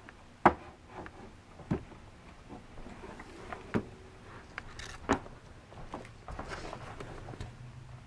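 Scattered knocks and clunks as a 1978 Hoover Convertible U4127 upright vacuum is handled and tipped over onto its side, motor off. The loudest knock comes about half a second in, with others near two, four and five seconds.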